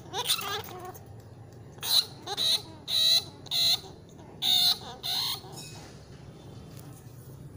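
Rat caught in a wire cage trap squealing in distress as a hand pokes at it through the mesh: several short, shrill squeals spread over the first five seconds.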